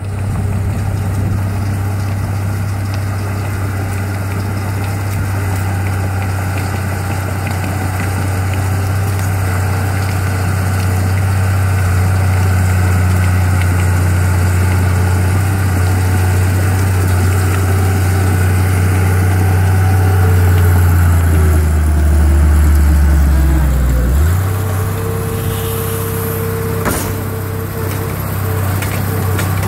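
Komatsu D31P crawler dozer's diesel engine running steadily as the blade pushes mud. About 21 seconds in, the engine's pitch sags and then snaps back up about three seconds later, after which a steady higher whine joins it. Near the end there are a couple of sharp clanks.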